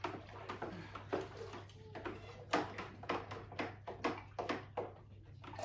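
A long stirring stick worked briskly through wine must in a plastic fermenting bucket, giving rhythmic stroke sounds at about three a second.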